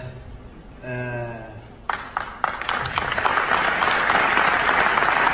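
Applause from a group: scattered claps start about two seconds in and quickly swell into steady, dense clapping.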